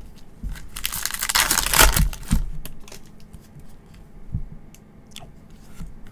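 A Topps Chrome trading card pack being torn open: a crinkly tearing of its foil wrapper lasting about a second and a half, with a few knocks. After it come light clicks and taps as the cards are handled.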